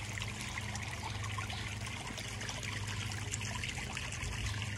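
Water trickling steadily in an above-ground pool, with a low steady hum underneath.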